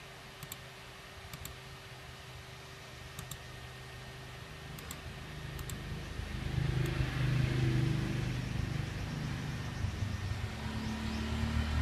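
Motor vehicle engine hum, faint at first and swelling louder from about six seconds in, then easing slightly, as a vehicle passes close by. A few faint clicks come in the first half.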